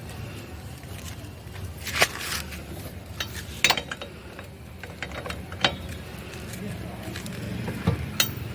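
A few separate metallic clinks and knocks, spaced a second or two apart, as hand tools from the tyre change are handled, over a steady low hum.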